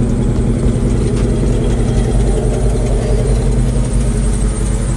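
A car engine idling loudly and steadily.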